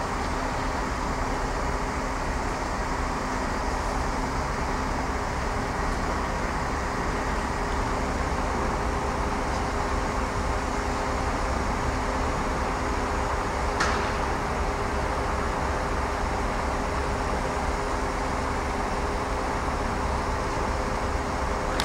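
Steady rumble of running engines and traffic, with a faint low hum underneath. A brief high squeak comes about fourteen seconds in.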